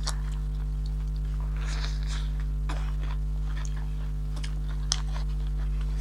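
People chewing chicken, with scattered short mouth smacks and clicks, over a steady low hum.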